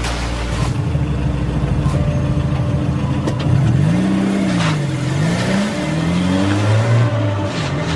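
Sound effect of a car engine revving, its pitch rising and falling in several waves, with a few sharp clicks along the way.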